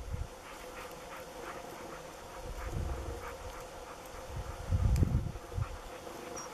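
Wind buffeting the microphone in low gusts, loudest about five seconds in, over a steady faint hum and short soft rustles as a husky pushes through long moorland grass.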